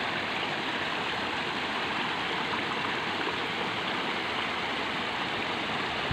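Steady rushing of flowing water in a drainage ditch, an even hiss with no breaks.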